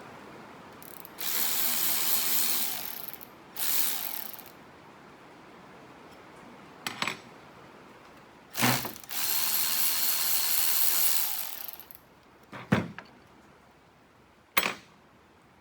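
Socket ratchet clicking in runs while bolts on a tractor starter are turned out: two short runs and one longer run of about three seconds, with a few sharp metal knocks between them.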